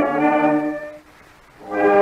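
Background music of held, sustained chords that fades out about a second in, pauses briefly, then comes back in.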